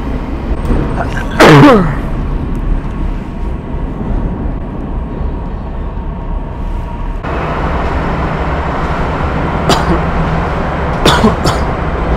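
Metro train carriage rumbling steadily on the move. About a second and a half in there is one loud, strange fake cough that slides down in pitch. The rumble grows louder and brighter about seven seconds in, and a few short sharp sounds come near the end.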